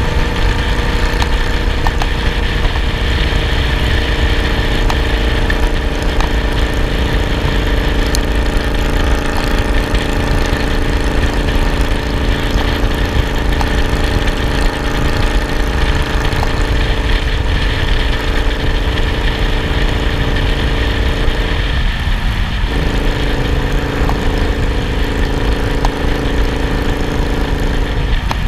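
Cruiser motorcycle engine running steadily at road speed, heard from a handlebar-mounted camera, with heavy wind rumble on the microphone. The engine note drops out briefly about 22 seconds in and again near the end, then comes back.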